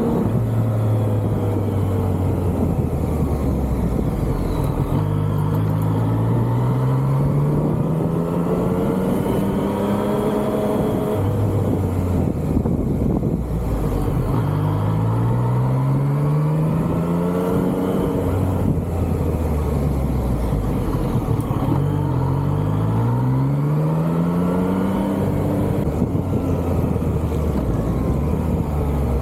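Yamaha MT-09's three-cylinder engine accelerating under way. Its note climbs steadily in each gear and steps down at each upshift, in several runs of pulling through the gears.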